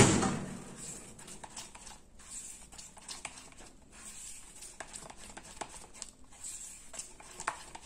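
A spatula stirring melted chocolate in a plastic melting pot: faint, irregular scrapes and soft taps against the pot's sides. It opens with one sharp knock.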